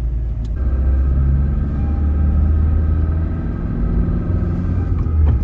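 Car driving on a paved road, heard from inside the cabin: a steady low rumble of engine and tyre noise.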